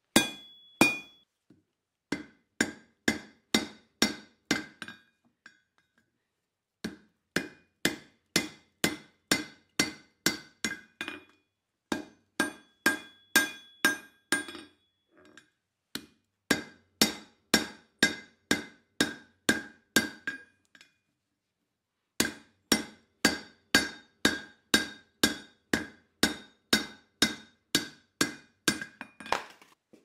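Hand hammer striking on the anvil in steady runs of sharp blows, about two a second, each with a short metallic ring: driving a drift through the punched eye of a hot steel carabiner blank. The runs break off for a second or so four times.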